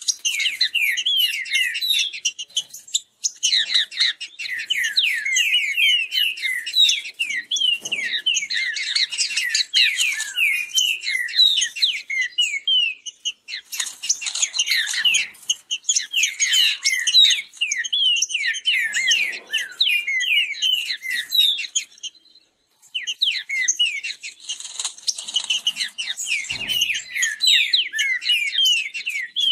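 Caged green-winged saltators (trinca-ferro) singing fast, overlapping whistled phrases against one another in song competition, with one brief pause about three-quarters of the way through.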